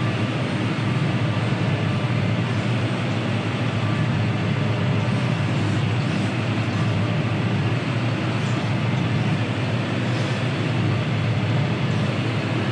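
Steady, even machinery drone of a John Deere 6R tractor running alongside a Claas Lexion 8900 combine harvester, while the combine unloads barley into the tractor's grain cart.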